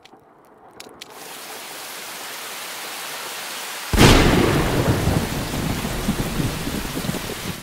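Thunderstorm: steady rain builds up, then a sudden loud thunderclap breaks about four seconds in and rumbles on under the rain.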